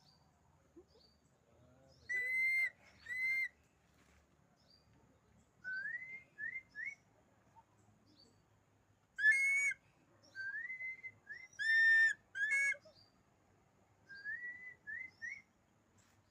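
Changeable hawk-eagle, dark morph, giving shrill whistled calls: a rising note followed by one or two shorter ones, repeated in bursts every few seconds. Faint high chirps of small birds come between the bursts.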